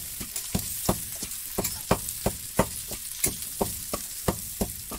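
Pork and potato pieces frying in a metal pan, stirred with a spatula: a steady sizzle with a sharp scrape or tap of the spatula against the pan about three times a second.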